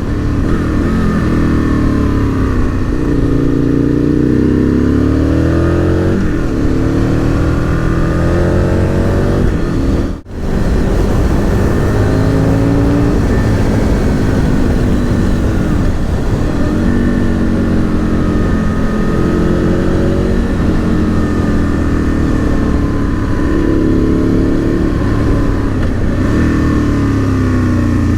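Aprilia RSV Mille R's V-twin engine through an Akrapovic exhaust under way, its note rising in pitch again and again as it pulls through the revs and dropping back between, with a brief cut in the sound about ten seconds in.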